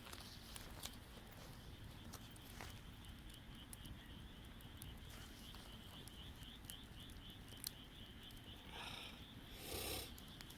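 Quiet wood campfire crackling, with scattered sharp pops. A faint high chirping pulses at about five a second through the middle, and a brief louder rustling burst comes near the end.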